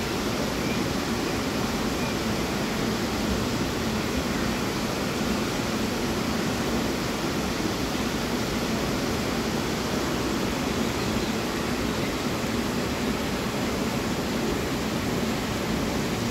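Steady, even rushing noise with no distinct events, the constant background of a tropical butterfly house.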